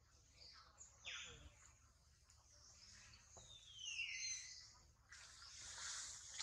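Faint, high-pitched animal calls that slide down in pitch: a short one about a second in and a longer one around four seconds in. A soft rustling hiss follows near the end.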